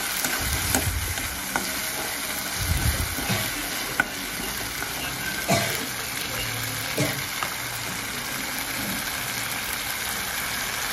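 Onions and ground spice masala sizzling in hot oil in a kadai, with a steady hiss throughout. A metal spatula stirs through it, clinking and scraping against the pan now and then.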